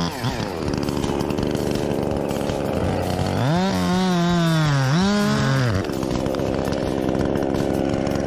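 Two-stroke chainsaw running at full throttle in a cut. About midway its engine note comes out clearly for a couple of seconds, sagging in pitch under load and picking back up before fading into the steady cutting noise.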